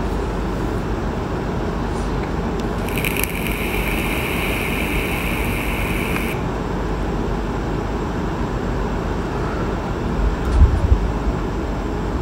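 Steady background noise, heaviest in the low end. A high hiss starts abruptly about three seconds in and stops just as abruptly some three seconds later. A couple of dull handling bumps come near the end.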